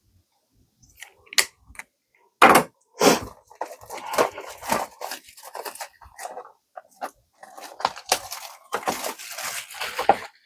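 Packaging of a trading-card booster box being torn open by hand: irregular tearing and crinkling rasps with a few sharp snaps, loudest about two and a half seconds in and again near the end.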